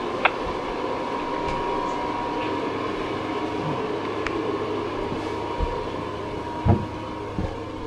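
Steady mechanical whir with a thin high whine, broken by a sharp click just after the start and a knock near the end, as the airlock door is opened and stepped through.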